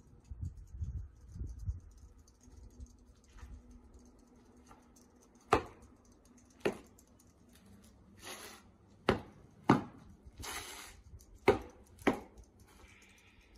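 Bajiquan form being practised on pavement: six sharp slaps and stamps of hands and feet, the later ones in quick pairs, with longer swishes and scuffs of clothing and shoes between them.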